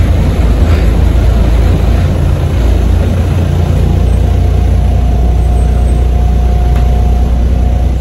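Heard inside the cabin, the engine of a VDL SB200 Wrightbus Pulsar 2 bus runs with a heavy, steady drone as the bus drives. About halfway through a steady whine joins in and holds: the bus's 'crying turbo'.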